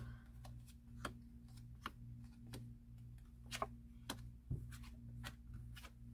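Light, irregular clicks and ticks of cards being dealt from a deck and laid down on a cloth-covered table, many in a row, over a steady low electrical hum.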